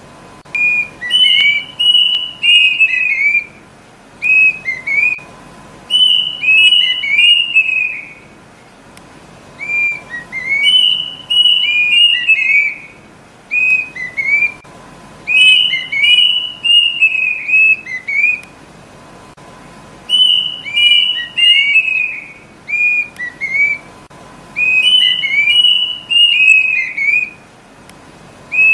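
Kedasih cuckoo calling: runs of quick, clear whistled notes, each run lasting a second or three and repeating after short pauses, with a faint steady tone underneath.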